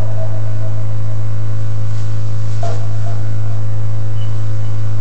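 Loud, steady electrical mains hum through the sound system, with many overtones above a deep base tone. A brief faint sound comes through about two and a half seconds in.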